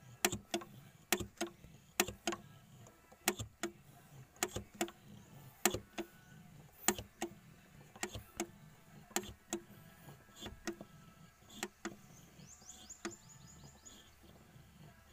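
Hand priming pump on the fuel filter head of an Isuzu 4JA1 diesel being pumped over and over, clicking about twice a second, often in pairs as the plunger is pushed down and let back up. It is drawing diesel into the filter to bleed air from the fuel system.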